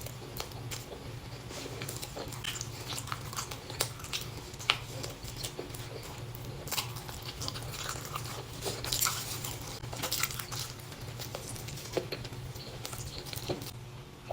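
Close-miked eating of a pastry: chewing and biting with small moist mouth clicks and crunches at an irregular pace, over a steady low hum.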